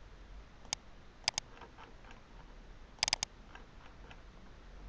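Computer mouse clicks: a single click, then a double click, then a quick run of three clicks, over faint background hiss.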